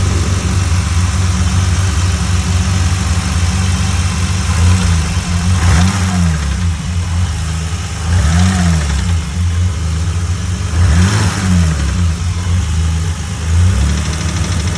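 BMW M20 2.5-litre straight-six (E30) running and blipped four times, each rev rising and falling back to idle. A metallic rod knock rattles through it, quickening and louder with revs and throttle: an early-stage spun connecting-rod bearing.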